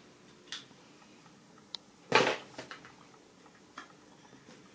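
A few light clicks and one louder short clatter, about two seconds in, from a compact mirror and makeup being handled.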